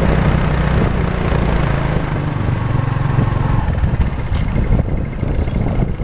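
Motorcycle engine running steadily while riding along a road, with rushing noise over the microphone; the engine note is clearest in the first half and is then more masked by rough rumble.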